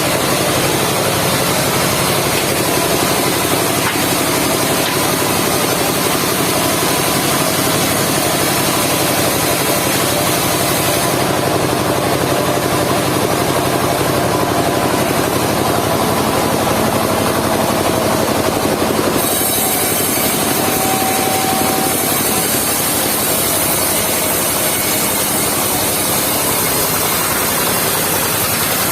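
Engine-driven mobile circular sawmill running steadily while its blade saws through a log. The sound changes about eleven seconds in and again near nineteen seconds, as the cut goes on.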